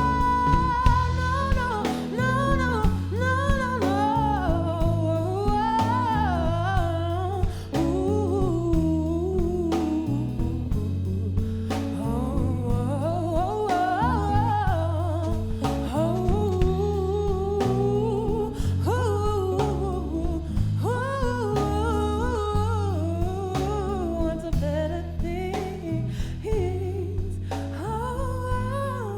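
A woman singing a slow soulful song with a gliding, held melody over a steady guitar-backed accompaniment.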